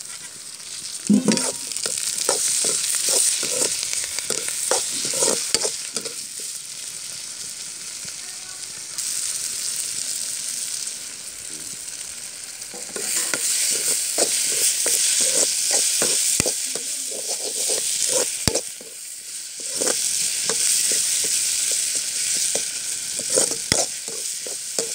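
Chopped onions, tomatoes, green chillies and curry leaves sizzling in hot oil in a kadai, with a steel spatula stirring and scraping against the pan. The sizzle swells in several stretches as the food is turned.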